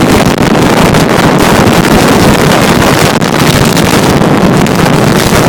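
Strong gale buffeting the microphone: a loud, continuous roar of wind noise with no let-up.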